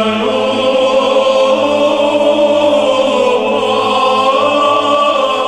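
Choral music, voices holding long, slow chords.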